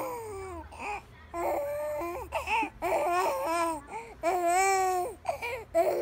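Young baby cooing and babbling: drawn-out vowel sounds, some held steady and some sliding up and down in pitch, with short pauses between them.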